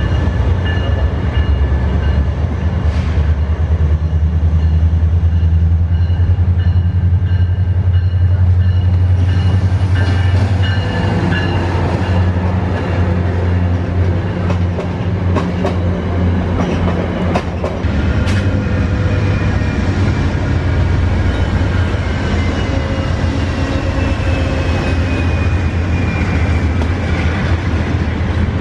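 Passenger train cars rolling past close by with a steady low rumble, the wheels clacking over rail joints several times in the middle. In the second half a high whine slowly falls in pitch.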